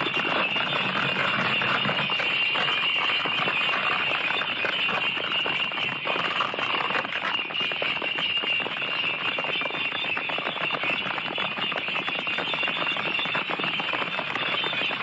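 A procession of bullock carts on the move: a steady, dense jingling and rattling from many carts at once.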